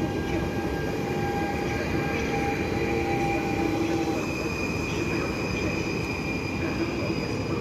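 PKP Intercity Stadler FLIRT electric multiple unit pulling out on the adjacent track: a steady electric whine from its traction equipment over wheel-on-rail rumble, the whine shifting in pitch about four seconds in.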